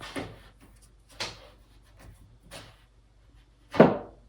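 Plastic magnetic shower-door seal strip being handled and turned around: a few short scraping rustles, then a louder thump near the end.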